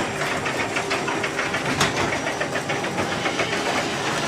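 Two garage doors travelling on Genie Silent Max openers, the openers' motors and the door rollers running in their tracks: a steady rumble with quick rattling clicks throughout.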